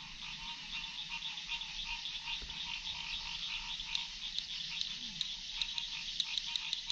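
A chorus of frogs calling, a steady run of rapid, pulsing calls.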